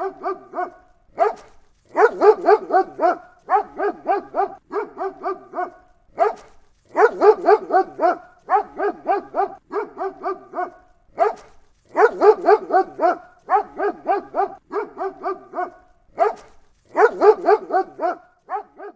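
German Shepherd dog barking angrily, in loud rough barks about one and a half a second. The barks come in runs of several seconds, with short pauses between them.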